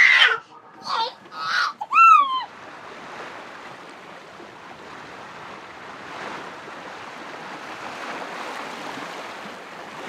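A baby's short high-pitched squeals and babbles, the last one about two seconds in, then a steady rush of water along the hull of a sailboat under way.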